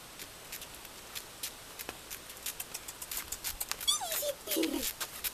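English bulldog puppy's claws clicking on a concrete path as it walks up on its leash, the clicks growing quicker and louder as it comes close. Near the end come a couple of short falling whines.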